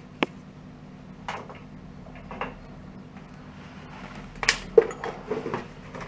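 Scattered clinks and knocks of metal tools and parts being handled in a workshop, with a cluster of louder knocks about four and a half to five and a half seconds in, over a faint steady low hum.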